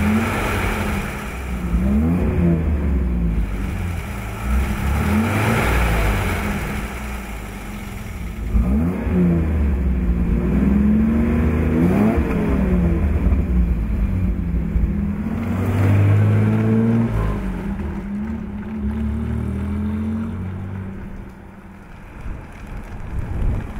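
1972 Intermeccanica Indra Spider's inline engine revving, its pitch climbing and falling several times over; the engine sound drops quieter near the end.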